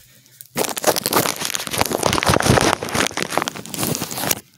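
Loud crinkling and rustling right up against the microphone, starting about half a second in and cutting off suddenly near the end.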